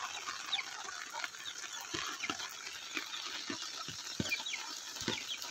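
Chickens calling with short, high falling peeps and clucks over a steady hiss of rain, with a few soft thumps.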